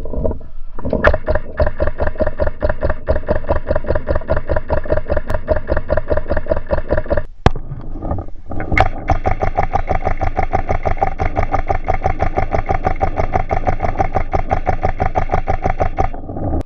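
Paintball marker firing rapidly, slowed down, heard as a fast, steady pulsing drone in two runs of about six seconds, each starting with a sharp click.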